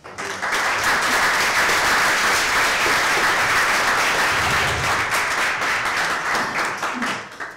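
Audience applauding, loud and dense, starting abruptly and dying away near the end.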